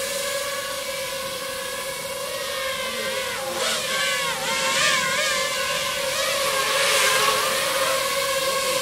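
Several quadcopter drones hovering close by, their propellers making a steady multi-pitched whine. A little over three seconds in, some of the pitches dip and rise again for about a second and a half as the drones adjust position.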